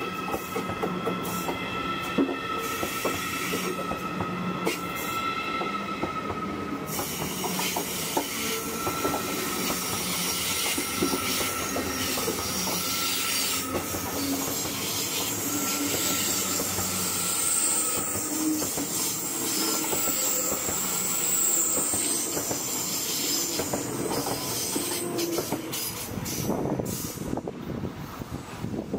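ICE high-speed train running past along the platform. For the first several seconds a whine of several steady pitched tones sits over the rolling noise. Then comes even wheel and running noise, with a high wheel squeal for a few seconds past the middle.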